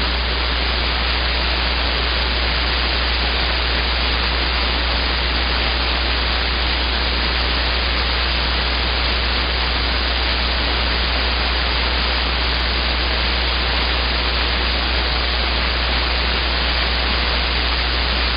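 CB radio receiver putting out steady static hiss on an open channel between transmissions, with a constant low hum underneath.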